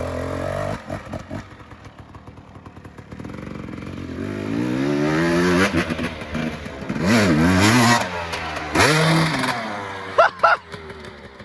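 Dirt bike engine revving as it rides the track. The pitch climbs through the gears, dips and climbs again twice, then falls away near the end with a couple of short sharp sounds.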